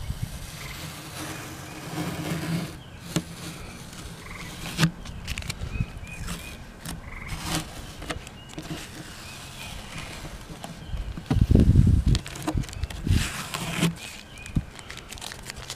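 A rag wiping and rubbing solvent and excess super glue off a guitar's spruce top, with masking tape pulled away, in short scattered rubs and light ticks. Faint chirping calls sound in the background, and a brief low rumble about eleven seconds in is the loudest moment.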